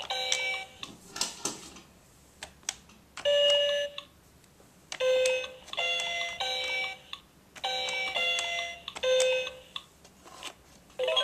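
LeapFrog Scout Letter Discoveries alphabet toy in its letter-music mode, playing a short electronic musical phrase each time a letter key is pressed. About half a dozen bright beeping note bursts, each under a second, come with pauses between them and a few clicks early on.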